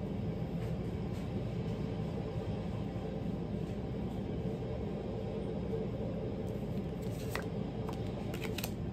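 A steady low rumble, with a few short light clicks and rustles near the end as tarot cards are handled.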